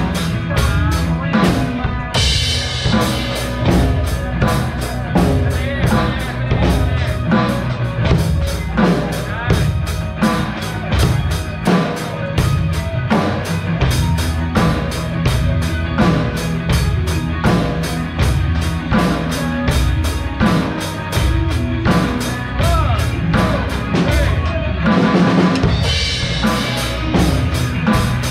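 Drum kits played in a steady rock beat, kick and snare strokes over the music of a song's backing track. Cymbal crashes come about two seconds in and again near the end.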